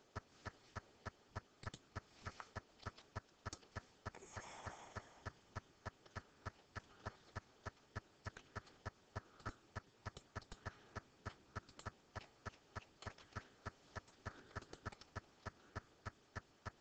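Faint, steady run of computer key clicks, about four a second, as a document is paged through. A short breathy rustle about four seconds in.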